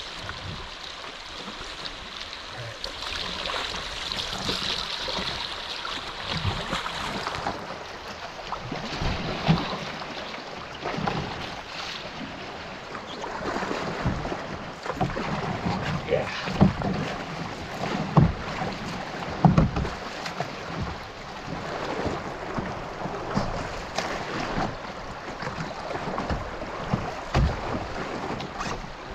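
Rushing spring-melt river water around a solo canoe, with irregular paddle splashes and knocks. The knocks come thicker and louder from about eight seconds in.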